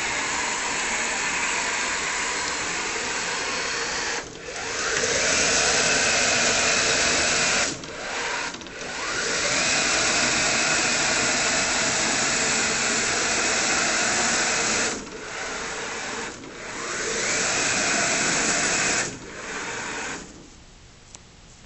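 Electric wheel drive motors of a six-wheeled mining robot whining as it drives. They stop and restart several times, the whine rising in pitch each time they start again, and the sound falls quieter near the end.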